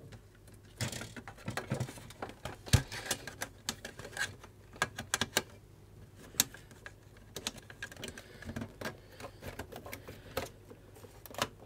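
Irregular clicks, taps and knocks of plastic and metal parts being handled and pushed into place in a Macintosh LC 630 chassis, with one sharper knock a little under three seconds in.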